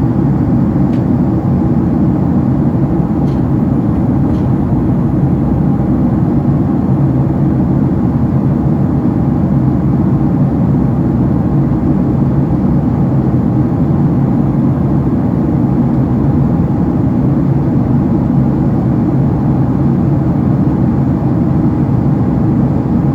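Steady, loud drone of a Boeing 767-300ER's jet engines and rushing air, heard from inside the passenger cabin, with a low hum and a fainter higher tone held throughout.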